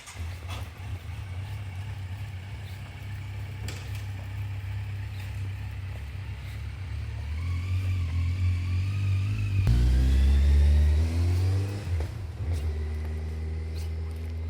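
A car engine running with a steady low hum, then accelerating: its note rises from about seven seconds in, breaks off abruptly near ten seconds as it changes gear, rises again and settles to a steady run.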